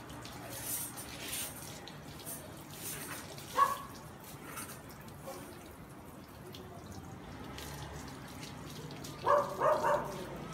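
Running water from a garden hose splashing over a dog's coat and onto a tiled floor while the dog is washed. A short sharp sound comes about three and a half seconds in, and a brief pitched vocal sound is heard shortly before the end.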